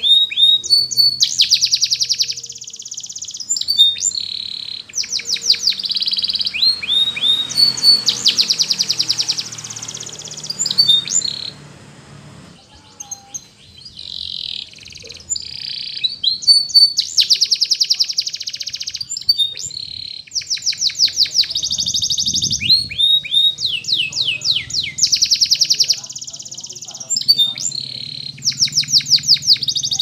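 Domestic canary singing, rapid trilled phrases of quickly repeated high notes one after another, with a short pause a little before halfway.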